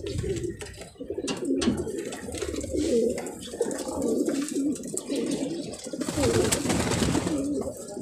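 Many racing pigeons cooing, their low wavering coos overlapping throughout. A brief rustling noise comes about six seconds in.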